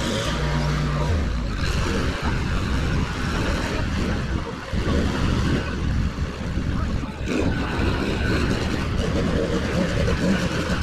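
Small petrol engine of powered lawn-care equipment running steadily, its level uneven with a couple of brief dips near the middle.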